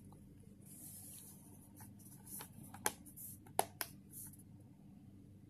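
Handling of a metal Blu-ray steelbook case with paper inserts inside: light rustling and a few sharp clicks, the loudest about three seconds in, as the case is shut.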